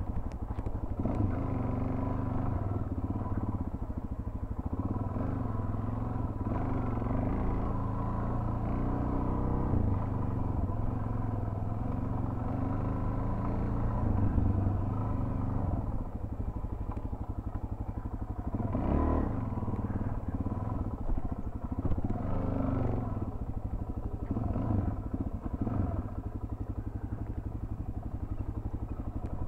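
Suzuki DR-Z400's single-cylinder four-stroke engine running as the dual-sport bike is ridden off-road, its revs rising and falling with the throttle, with several quick rev-ups in the second half.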